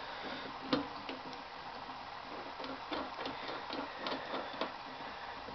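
Light, irregular metallic ticks and clicks as the cutterhead of a Woodmaster planer-molder is worked loose to be pulled out of its side bearing, with one sharper click about a second in.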